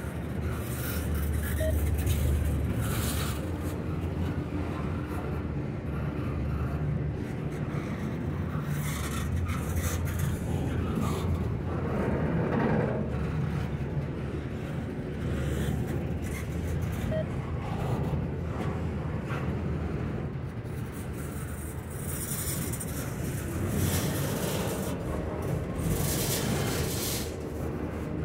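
Double-stack intermodal well cars of a freight train rolling past at close range. Steel wheels on rail give a steady low rumble, with scattered clacks and scrapes.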